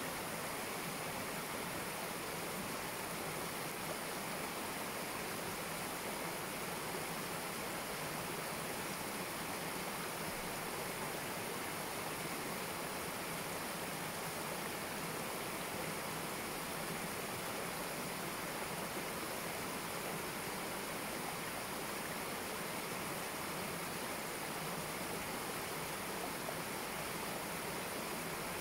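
Shallow stream water rushing and splashing steadily over a low step of rocks: a constant, even babble.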